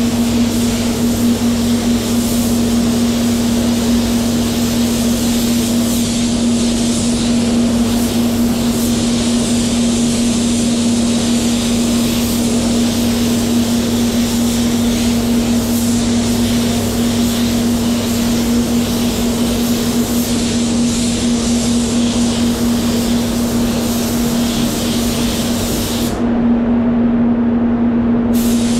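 Satajet X5500 spray gun hissing as it sprays water-based metallic base coat, over a steady low hum; the hiss stops for about two seconds near the end as the trigger is let go, then starts again.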